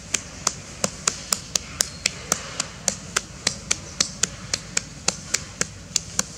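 Sharp clicks repeated at a steady pace, about four a second, each with a brief pitched ring.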